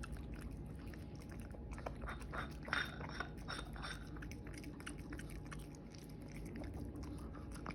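Shih Tzu eating raw beef, chewing with a scatter of short wet clicks that come thickest about two to three seconds in.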